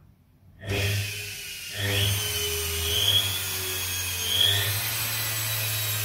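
Washing machine's brushed motor, run off 220 V through a triac speed controller, starting up about a second in and then running unloaded with a steady mains hum, brush hiss and a whine that rises and falls as the speed changes.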